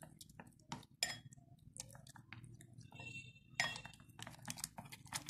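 Chopsticks stirring a runny flour, water and egg batter in a ceramic bowl, clicking and tapping irregularly against the bowl, faint, over a low steady hum.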